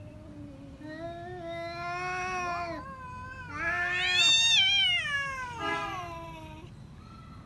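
Cat threat-yowling (caterwauling) in a face-off with another cat: long, wavering low moans that swell into a louder, higher wail about four to five seconds in, then fall away and fade.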